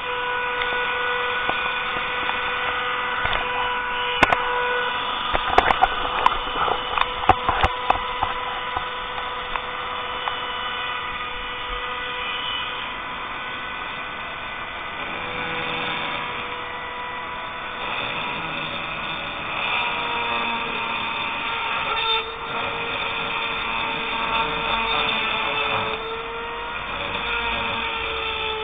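Handheld rotary tool whining steadily as it grinds a metal magazine adapter part for a Saiga rifle. A cluster of sharp clicks comes about four to eight seconds in, and near the end the pitch dips and wavers as the tool is loaded against the work.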